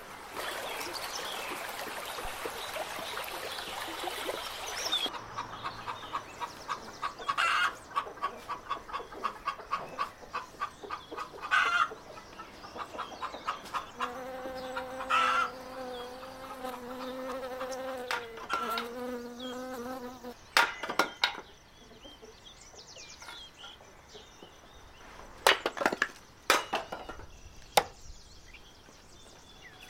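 A buzzing insect for several seconds midway, with fast rhythmic tapping before it and a few sharp knocks near the end.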